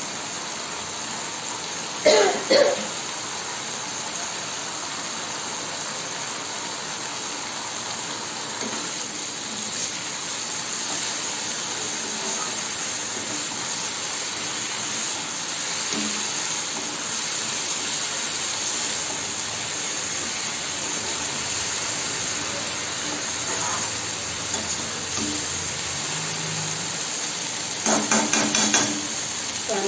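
Boiled cluster beans sizzling steadily in an iron kadhai as their leftover water cooks off, with a steel spatula stirring and scraping against the pan. There is a brief louder burst about two seconds in, and more near the end.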